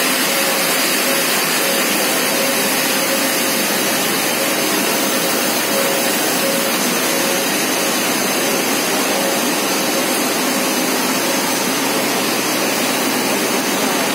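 A Ferraro felt-type open-width compactor running: a steady, loud, even whirring hiss of machinery with a faint steady hum tone.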